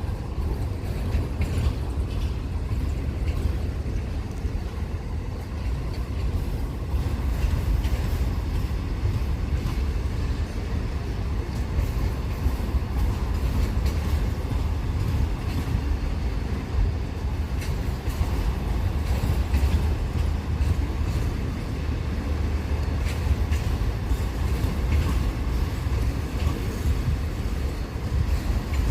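Freight train of car-carrier wagons hauled by 35GM-EMD diesel locomotives, a steady low rumble with faint clicks from the rails.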